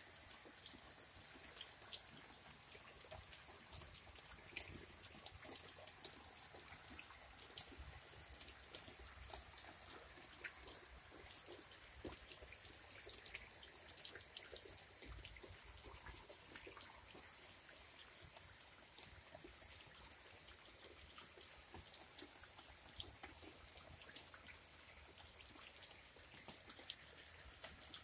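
Steady rain falling, with frequent irregular drips landing close by as sharp ticks.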